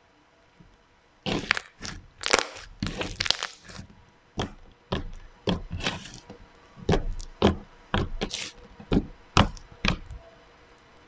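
Thick pink slime being stretched, folded and pressed by hand, giving off an irregular run of sharp pops and crackles that starts about a second in.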